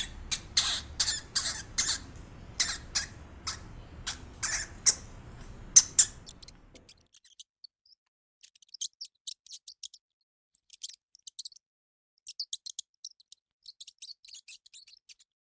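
Hamster squeaking: a run of short, sharp, high-pitched squeaks about every half second. About seven seconds in it gives way to fainter clusters of quick high clicks and tiny squeaks.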